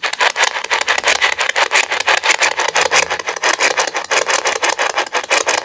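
Spirit box sweeping through radio stations: a rapid, choppy hiss of static broken into about ten pulses a second, cutting in abruptly. It is the device that ghost hunters use to listen for words from spirits.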